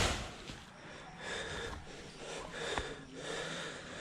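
A person breathing hard, close to the microphone: three heavy breaths about a second apart. A sharp knock right at the start.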